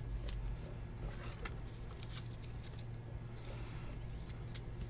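Trading card and clear plastic holder being handled: soft rustling and a few light clicks as the patch card is fitted into a top loader, over a low steady hum.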